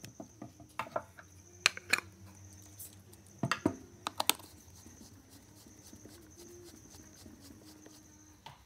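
Screwdriver clicking and scraping against the screws and rear cover of a PA horn driver unit: a run of sharp clicks and knocks in the first half, then faint scratching. A faint steady high tone runs underneath.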